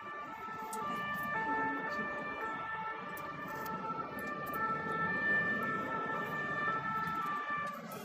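Emergency vehicle sirens, more than one overlapping, each holding steady tones that alternate between pitches, over a low hum of city traffic.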